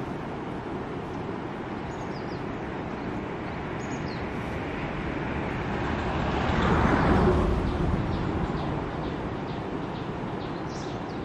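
A steady rush of outdoor noise, with a road vehicle passing close about seven seconds in, its sound rising and then fading away. Short high bird chirps come a few times over it.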